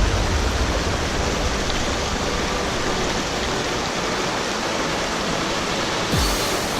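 Mountain stream water rushing steadily over rocks, an even hiss of white water. A brief low bump about six seconds in.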